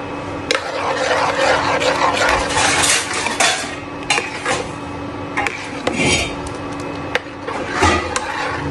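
Metal spoon stirring and scraping a tomato-onion masala frying in oil in an aluminium pan, clinking against the pan's side now and then, over a steady hum.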